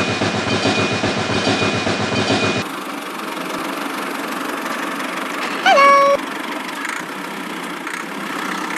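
A small engine running steadily, its sound changing abruptly about two and a half seconds in, with a short loud pitched squeak near six seconds.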